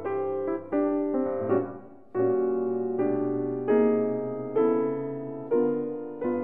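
Solo piano music: slow chords struck roughly once a second, each left to ring and fade.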